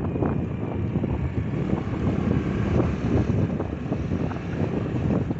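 Wind buffeting the microphone over the steady engine and road noise of a motorcycle being ridden along a paved road.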